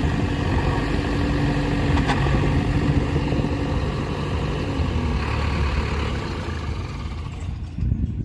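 Diesel engine of a JCB 3DX backhoe loader running steadily at working revs, its pitch easing down a little about four seconds in, with a single sharp clank about two seconds in.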